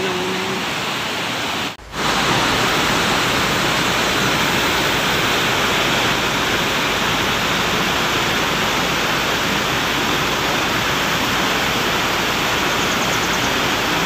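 Fast-flowing mountain stream and waterfall rushing over boulders, a steady roar of white water. About two seconds in, the sound cuts out for an instant and comes back slightly louder.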